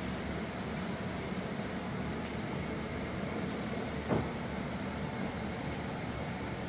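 Steady low background hum, with one short soft bump about four seconds in.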